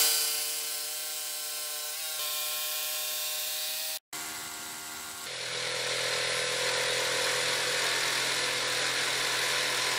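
Electric jigsaw running steadily as its blade cuts lengthwise through a thick block of linden wood. The sound breaks off abruptly about four seconds in and picks up again straight after.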